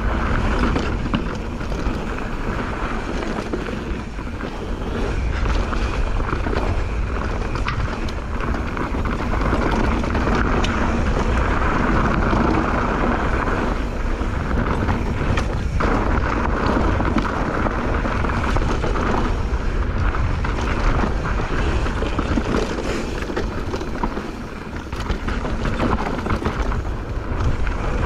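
Mountain bike descending fast on a dirt trail: wind buffeting the camera microphone over tyres rolling on dirt and rock, with constant small rattles and clicks from the bike.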